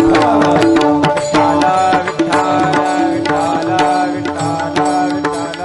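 Instrumental kirtan accompaniment between verses: a sustained melody instrument plays held notes that step from pitch to pitch, over steady hand-drum strokes.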